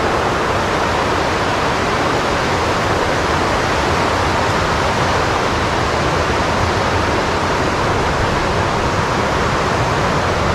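Waterfall rushing steadily: a constant, even roar of falling white water.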